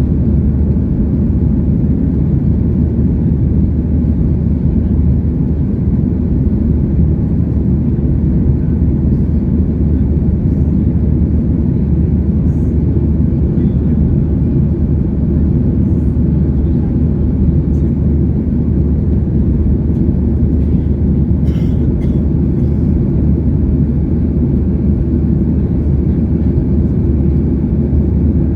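Steady, loud drone of a Boeing 737-800's CFM56 jet engines and airflow, heard from inside the passenger cabin.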